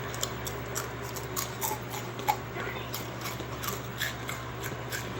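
Potato chips being eaten: a string of irregular, crisp crunches and crackles, about three a second, over a faint steady hum.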